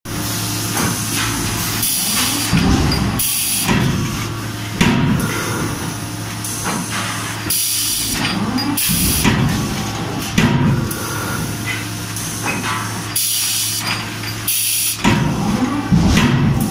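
CNC hydraulic die forging hammer striking hot turnbuckle blanks, its heavy blows coming in groups every few seconds. Short bursts of hissing come between the groups, over a steady low machine hum.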